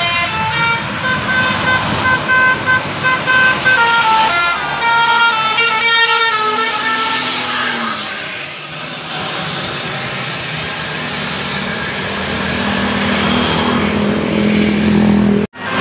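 A bus's Basuri telolet horn, a multi-tone melodic horn, playing a quick stepped tune of changing notes for about eight seconds. Then comes the noise of the bus going past, with a low steady hum growing near the end.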